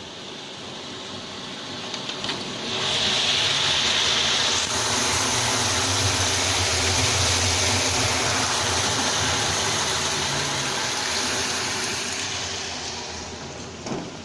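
Peanut roasting machine running: a steady mechanical noise with a low hum that swells about two and a half seconds in, stays loud, and eases off near the end.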